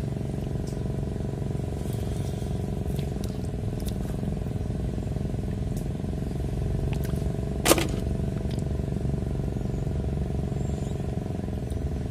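A motor engine running steadily, a low even drone with several held tones. Faint scattered clicks throughout, and one sharp loud click a little past the middle.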